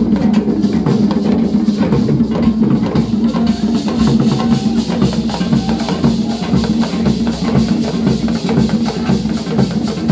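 Traditional Ghanaian drum ensemble playing a dense, driving rhythm on barrel hand drums, with strokes coming thick and fast and a strong deep drum tone.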